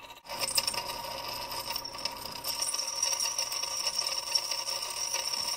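Magnetic stirrer running under a glass beaker, a steady motor whine with fine rapid clicking from the stir bar, as a metallic salt is stirred into methanol to dissolve.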